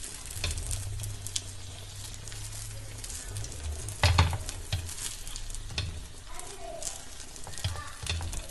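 Butter sizzling on a dosa tawa as folded crepe egg pockets shallow-fry. Light clicks of the pockets being handled on the pan, with one louder knock about four seconds in.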